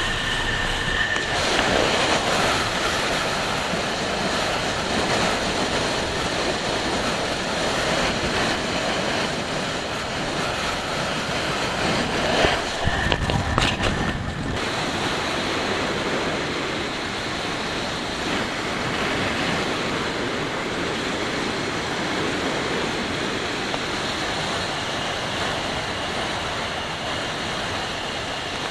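Wind rushing over the microphone of a camera mounted on a moving motorcycle, a steady noise with the bike's engine and road noise underneath; the buffeting gets louder and uneven for a couple of seconds near the middle.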